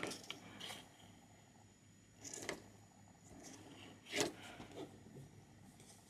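Faint, sparse handling noises: light clicks and rustles of a plastic charger, USB power meter and cable being handled. The loudest come about two and four seconds in.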